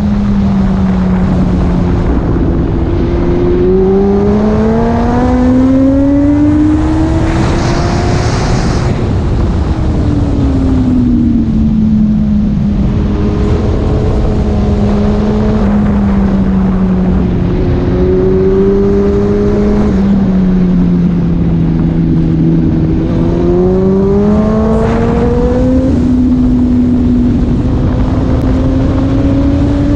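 Yamaha R1 inline-four engine heard onboard at speed, under heavy wind noise. The engine note climbs under acceleration twice, falls back as the throttle is eased for corners, and holds steadier in between.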